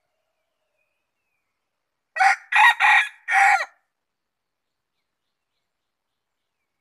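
Rooster crowing once, a four-part cock-a-doodle-doo lasting about a second and a half, starting about two seconds in.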